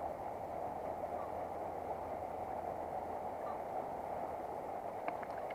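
Steady rush of a stony river flowing, an even noise without pauses, with a few faint clicks near the end.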